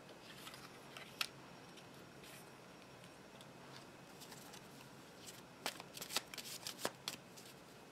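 Tarot cards being handled: a single crisp click about a second in as cards are lifted from the spread, then from about five and a half seconds a quick run of sharp card flicks and snaps as the deck is shuffled.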